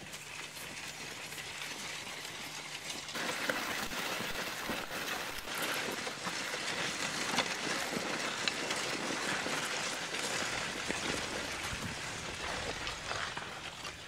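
Ransomes horse plough cutting a furrow: the share and mouldboard tearing through stubble and turning the soil, a steady crackling rustle full of small clicks that starts about three seconds in.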